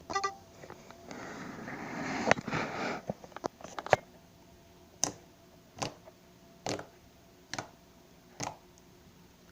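Slime being played with by hand: a squishing, crackling stretch about a second in, then five sharp pops, evenly spaced a little under a second apart.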